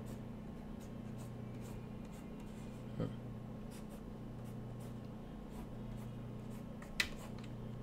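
Faint scratches and light taps of a stylus working on a digital drawing tablet over a steady low hum, with a soft knock about three seconds in and a sharper click near the end.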